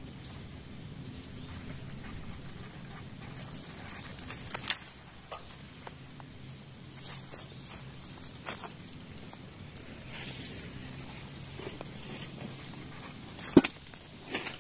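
Dry twigs and kindling being handled and snapped by hand: irregular crackles and rustles with one loud snap near the end. A short, high, rising chirp repeats every second or so in the background.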